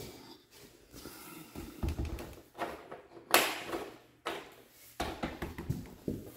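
Sliding closet door handled on its metal top track: a series of knocks and rattles, the loudest a sharp knock about three seconds in.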